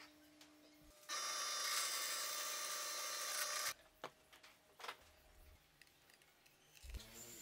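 Benchtop drill press boring into a plywood block: a steady high whine that starts abruptly about a second in and stops abruptly some two and a half seconds later. Afterwards come a few faint knocks of plywood pieces being handled.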